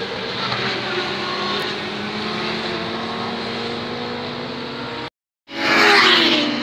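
Sport motorcycles running at speed on a race circuit, with several engine notes droning steadily across the track. After a brief cut, one motorcycle passes close at high speed, loud and falling in pitch as it goes by.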